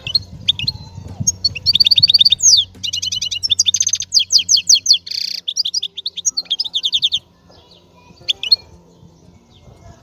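A small songbird, a caged finch or canary, singing a fast, varied song of repeated chirps and trills for about six seconds, then pausing and giving a short call near the end.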